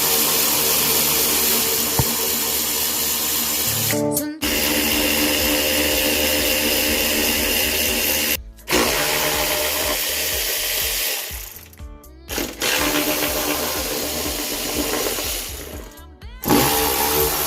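Cordless power driver spinning with a steady whine, backing out the Allen bolts of a motorcycle's side fairing, in several short stretches that start and stop abruptly; it winds up in pitch after a couple of the breaks.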